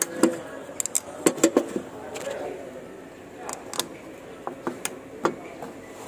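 Scattered light clicks and knocks of hands handling a plastic oil filter housing cap while fitting a new O-ring to it, several in quick succession in the first second and a half, then a few more spaced out.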